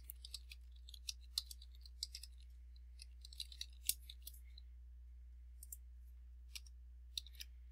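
Computer keyboard keys being typed in short, irregular clicks as an email address and password are entered, over a faint steady low hum.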